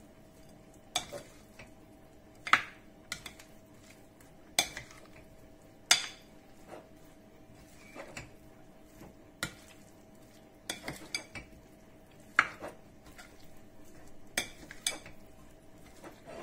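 A spoon knocking and scraping against a ceramic bowl while a chunky potato and asparagus pickle is mixed, with irregular knocks every second or two.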